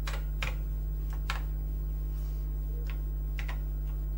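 About six separate keystrokes on an Acorn Electron's keyboard, irregularly spaced as commands are typed in, over a steady low electrical hum.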